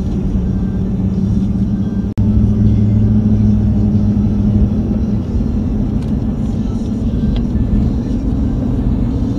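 Lifted pickup truck driving on a paved road, heard from inside the cab: a steady engine and tyre drone, with a brief break about two seconds in.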